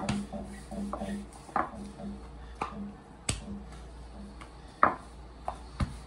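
Wooden rolling pin working very stiff baklava dough by hand: scattered knocks and clicks, about eight in six seconds, the sharpest a little past halfway.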